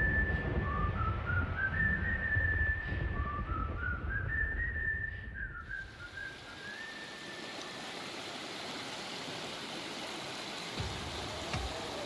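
Background music with a high, whistle-like melody climbing in steps, which drops out about halfway through. The steady rush of a small mountain stream over rocks is left.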